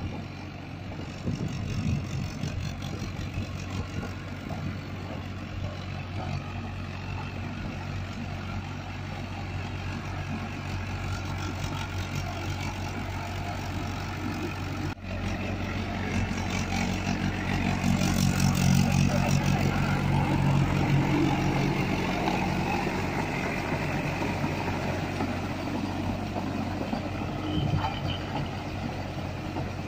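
Mahindra Arjun 555 DI tractor's four-cylinder diesel engine running steadily under load as it drives a rotavator through a flooded paddy field. A brief break about halfway through is followed by a louder, closer engine sound.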